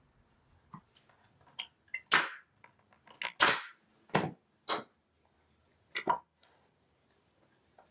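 A series of irregular sharp knocks and clacks, the loudest a little after two seconds and around three and a half seconds in: a one-hand bar clamp and small wooden parts being handled and set against a wooden birdhouse box on a workbench.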